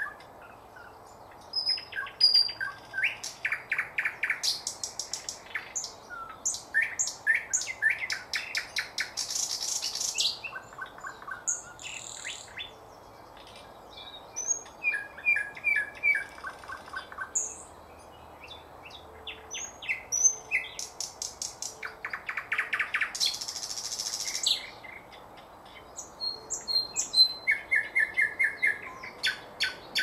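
Eastern nightingale singing: phrases of a few seconds each made of rapidly repeated notes, clear whistles and trills, separated by short pauses.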